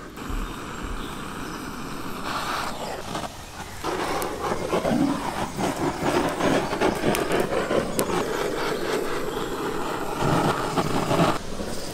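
Handheld butane gas torch, its flame hissing and fluttering as it is played over whole lamb carcasses, with a few sharp clicks. The flame noise grows fuller about four seconds in.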